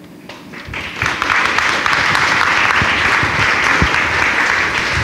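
Audience applauding: clapping builds up within the first second, then holds loud and steady.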